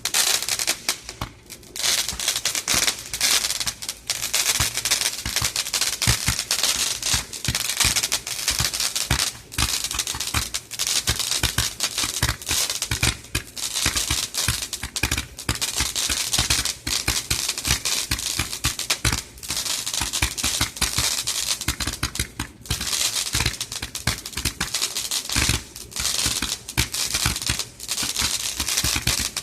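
180-shot Roman candle firing in quick succession: a dense, unbroken stream of sharp pops and crackles that starts abruptly.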